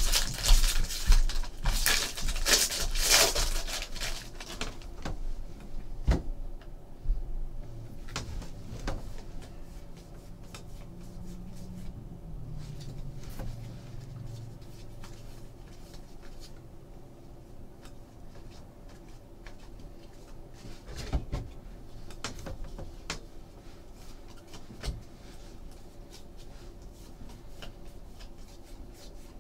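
A foil trading-card pack crinkling as it is torn open for the first few seconds. After that comes the quieter rustle and flick of a stack of baseball cards being sorted by hand, with occasional light clicks.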